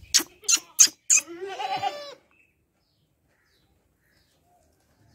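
Four sharp clicks in quick succession, then a single goat bleat that rises in pitch and lasts under a second.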